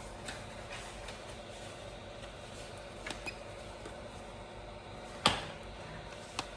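A few sharp clicks or light knocks over a steady low hum. The loudest click comes about five seconds in, with smaller ones a little after three seconds and near the end.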